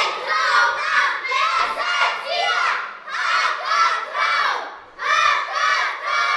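A group of young boys shouting together in unison, a team chant in short rhythmic bursts, with brief breaks about three and five seconds in.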